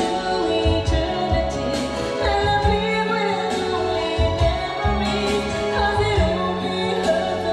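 Karaoke singing: a singing voice over a backing track with bass and a steady beat.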